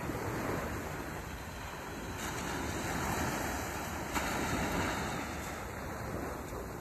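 Small waves breaking and washing up a sandy beach: a steady rush that swells about half a second in and again from about two to five seconds in.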